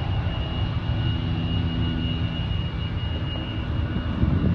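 Distant jet airliner's engines giving a steady low rumble as it climbs away after takeoff, with a thin steady whine above it and a brief louder rumble near the end.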